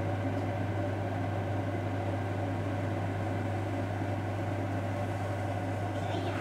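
A steady low mechanical hum, like a motor or fan running, that does not change throughout.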